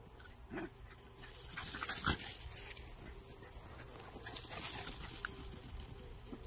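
Dogs making short vocal sounds: a brief whine about half a second in, then a louder, sharper yelp about two seconds in, amid rustling.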